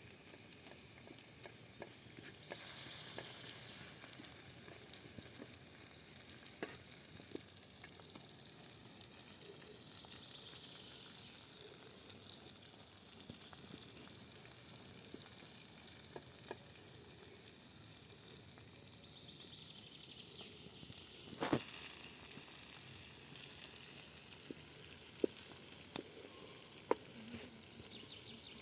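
Food sizzling in a pan over a campfire, a steady high hiss with scattered sharp clicks, and a louder knock about three-quarters of the way through.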